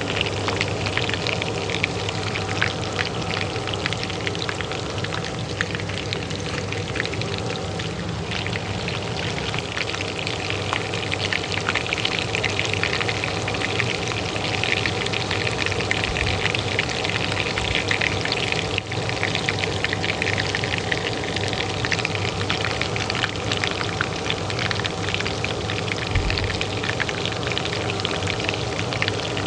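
Hot oil frying in a pan with dense, steady crackling, over the constant hum of a kitchen range hood fan.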